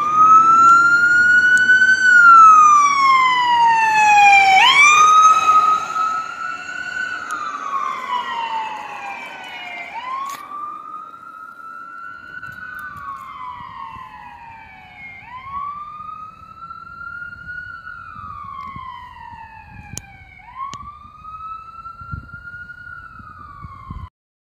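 Electronic wail siren of a fire department ambulance on an emergency run, rising and falling about every five seconds. It is loud as the vehicle passes during the first few seconds, then grows quieter as the vehicle drives away, and cuts off abruptly near the end.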